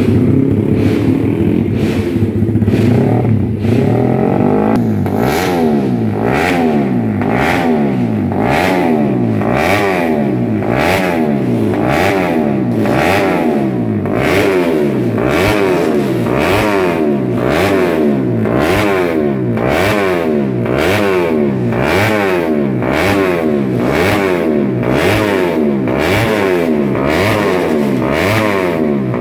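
Motorcycle engine revved up and down over and over. After a few seconds it settles into a regular rhythm, the pitch rising and falling about once a second.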